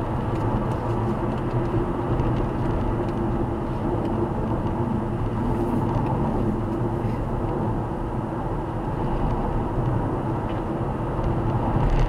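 Steady road and engine noise from a car cruising at about 100 km/h, heard from inside the cabin.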